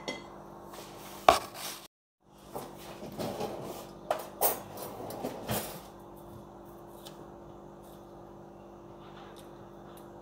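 Metal fork scraping and clinking against a glass bowl as salad is tossed, with a few sharp clinks, after a single sharp knock about a second in. A faint steady hum remains for the last few seconds.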